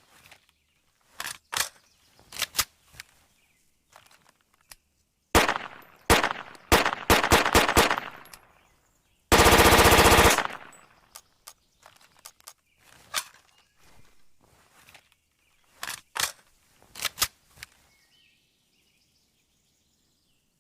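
Heckler & Koch MP7 submachine gun firing: single shots and short quick strings, then one continuous full-auto burst of about a second near the middle, followed by more scattered single shots and pairs.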